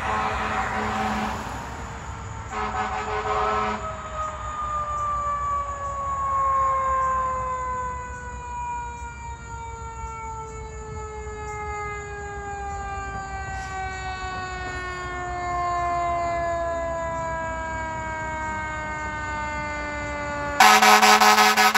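Fire engine siren winding down in one long, slow, steady fall in pitch, the coast-down of a mechanical siren on a 2013 Sutphen pumper. Near the end a loud, steady air horn blast cuts in.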